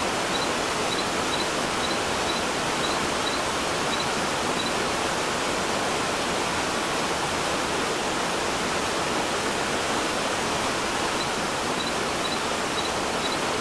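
Steady rush of a mountain stream's waterfall, water pouring over rocks. A faint high chirp repeats about three times a second for the first few seconds and again near the end.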